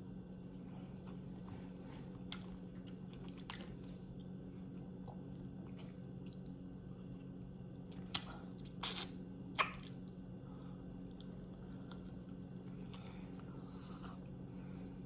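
Quiet close-miked eating sounds from a person's mouth: a few soft clicks early on, then a handful of sharper wet mouth clicks and smacks a little past the middle, over a steady low hum.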